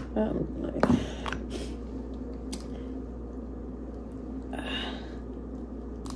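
Close-miked eating sounds from king crab legs being broken open and picked apart by hand: a few scattered clicks and cracks of shell in the first couple of seconds, then a short wet, crackly rustle a little before the end.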